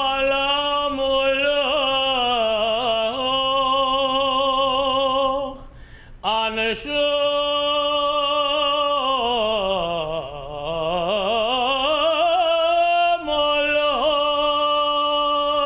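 A cantor's solo operatic tenor voice singing a Selichot prayer in cantorial style: long held notes with wide vibrato, a slow sweep down to low notes and back up in the middle, broken twice by short pauses for breath.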